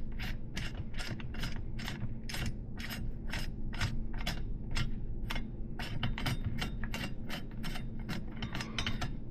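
Ratchet wrench clicking steadily, about four clicks a second, as the axle of a 3/8" solid-axle BMX hub is worked through a fork dropout.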